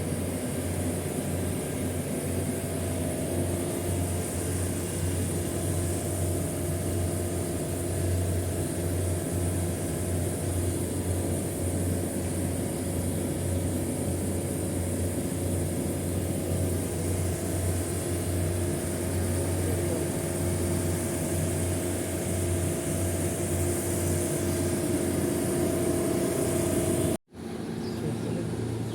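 A vehicle engine running steadily: an even low hum with a hiss over it, and a faint higher tone that joins about three seconds in.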